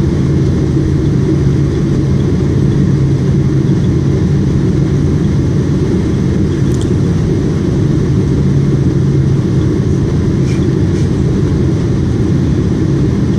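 Boeing 777 cabin noise on final approach: the steady roar of the jet engines and rushing airflow heard from a window seat, with a steady low hum underneath.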